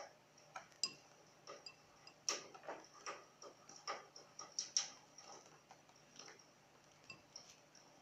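Cockatiel bathing in a small bowl of water: irregular soft splashes and ticks as it dips and ruffles in the water, a couple each second.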